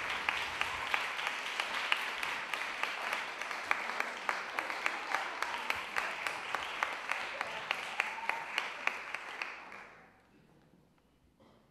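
Audience applauding, a steady patter of many hands that dies away about ten seconds in.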